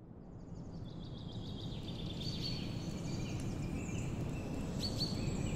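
Birds chirping and calling over a steady low rumbling background noise, fading in from silence over the first couple of seconds.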